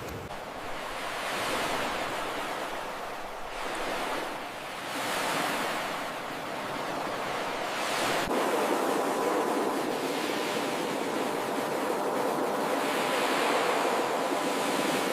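Ocean surf breaking and washing up a beach. The wash swells and falls back about four times, with a sharp tick near the middle.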